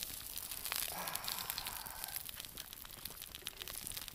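Faint scattered ticks and crackles of light rain and a campfire, with a soft scrape as a metal spatula lifts scrambled egg out of a cast-iron Dutch oven.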